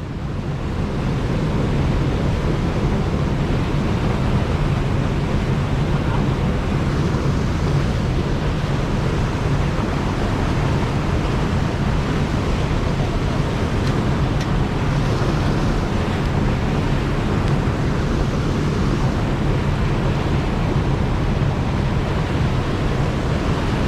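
Steady rush of water pouring over an overflow weir: an even, unbroken noise.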